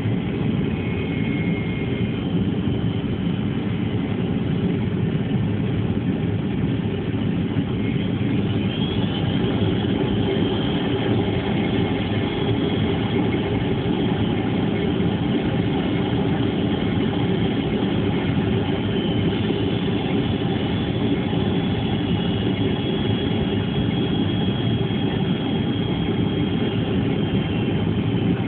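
Steady rumble of an airliner's engines with a faint high whine that shifts up slightly about 8 seconds in and again about 19 seconds in.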